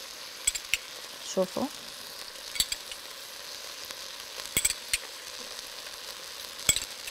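Steady sizzling hiss from a pot of cooked rice on a lit gas burner, with a few sharp clicks of a metal spoon against the pot as the rice is stirred.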